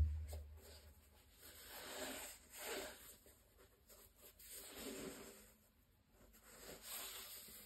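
Fabric-gloved hands handling a basketball sneaker, with soft rustling and brushing against the shoe's textile upper and rubber sole in several swells as it is lifted and turned. A low thump at the start is the loudest sound.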